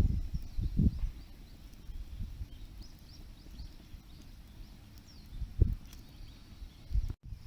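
Outdoor ambience of irregular low thumps and rumbling, with faint, short, high chirps of small birds in the background.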